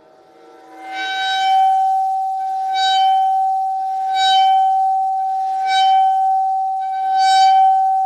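Chladni plate ringing one steady high tone, swelling louder and harsher five times, about every second and a half.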